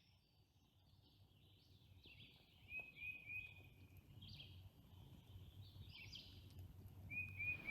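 Faint birdsong: several birds giving short chirps and whistled notes, growing slowly louder.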